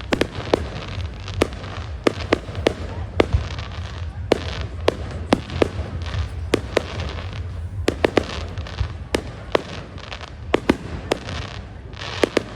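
Fireworks going off: a string of sharp bangs and cracks at irregular spacing, roughly one or two a second, over a continuous low rumble and hiss.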